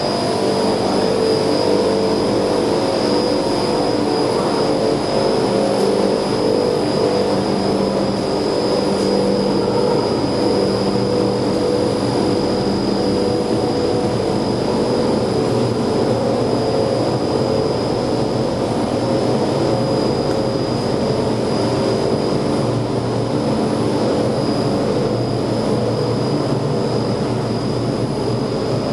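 Reversible heat pump running steadily: an even machine drone of fans and compressors, with steady humming tones and a thin high-pitched whine over it.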